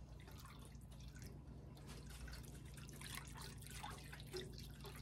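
Faint whisking of thin gravy in a stainless steel skillet: soft wet clicks and swishes of the whisk moving through the liquid, over a low steady hum.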